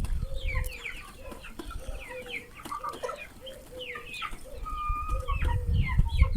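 Young chickens peeping and clucking: many short, overlapping falling chirps from several birds, with a low rumble at the start and again near the end.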